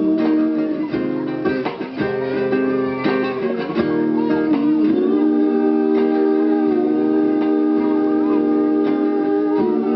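Live acoustic band music: acoustic guitar with sustained chords under a sung melody.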